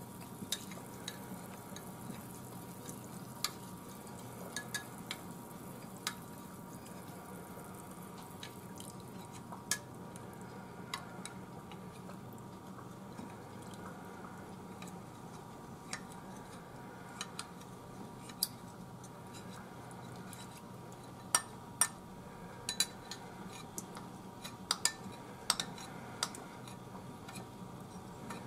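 A metal spoon scraping and clinking against a ceramic bowl as its contents are stirred and scooped into a pot, with scattered small clicks and a run of sharper clinks in the last several seconds. A steady low hum sits underneath.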